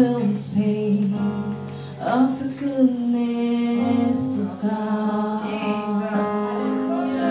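A woman singing a worship song into a microphone over amplified instrumental accompaniment, heard through the church PA.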